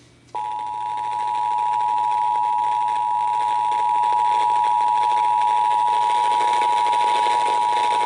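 Emergency Alert System two-tone attention signal (853 Hz and 960 Hz sounding together), received off an FM radio broadcast: a loud, steady dual tone that starts about a third of a second in and holds, over radio hiss. It marks the start of a child abduction (AMBER) emergency alert.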